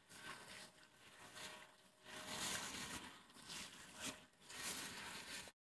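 Garden hose spray nozzle rinsing soap off a Blackstone griddle's steel top: water spray hissing and splashing on the flat plate, swelling and easing as the spray is moved, then cutting off suddenly near the end.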